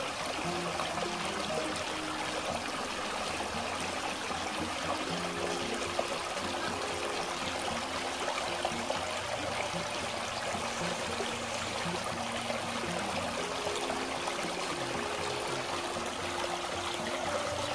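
Small river flowing, a steady, continuous rush of water.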